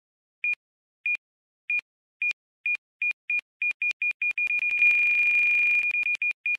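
Short electronic beeps, all at one high pitch, coming faster and faster until they run together into one steady tone about five seconds in, which breaks back into quick beeps near the end.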